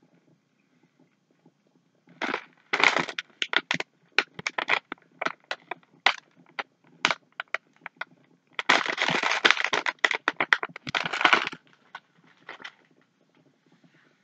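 A crinkly plastic M&M's candy bag being handled and scrunched. Sharp crackles start about two seconds in, a dense stretch of rustling follows about two-thirds of the way through, and a few last crackles come shortly before it stops.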